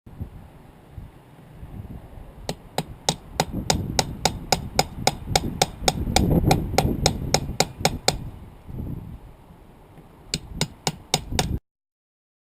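Hammer blows struck rapidly, about four a second, in a long run and then a shorter run of about six near the end, over a low rumbling background.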